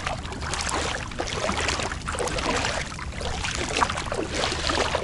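A hooked bream (bakoko) splashing and thrashing in shallow seawater as it is pulled toward shore, with water sloshing and trickling in irregular splashes.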